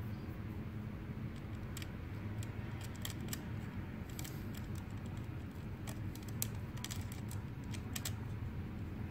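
Scattered light metal clicks and ticks as a hex key and a small lock anchor are worked into the steering column's lock slot and tightened, over a steady low hum.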